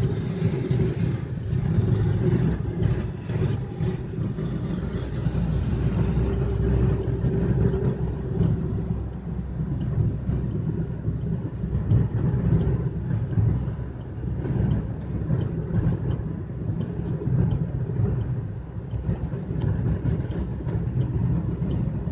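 Cabin noise of a Maruti Suzuki Dzire driving on a highway: a steady low rumble of engine and tyres on the road, with a steady hum that fades out about nine seconds in.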